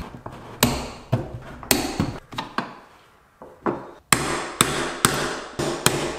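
A series of sharp hammer blows on metal, each ringing briefly: irregular at first, a short lull about three seconds in, then a steady beat of about two blows a second.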